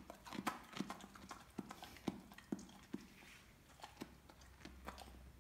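A Weimaraner chewing a raw carrot stick: a run of crisp, irregular crunches, about two or three a second, growing fewer after about three seconds.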